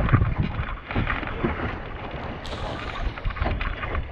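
Wind buffeting the microphone on a sailboat under way, with irregular low thumps of gusts and water against the hull.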